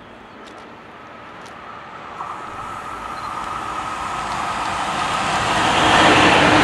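An approaching train, its running noise growing steadily louder as it nears.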